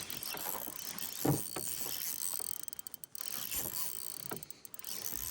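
Fishing reel winding with a clicking, ratcheting sound while a fish is brought in, with one dull knock about a second in.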